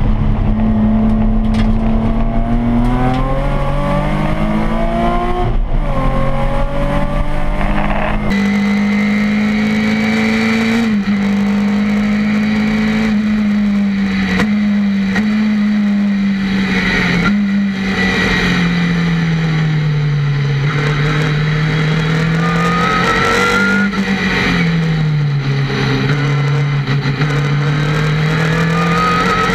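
Race car engine at full throttle, heard from inside the cabin, climbing in pitch through two upshifts in the first few seconds. After an abrupt change about eight seconds in, the engine note falls and climbs again several times as the car lifts for corners and accelerates out, with a thin rising whine over it under acceleration.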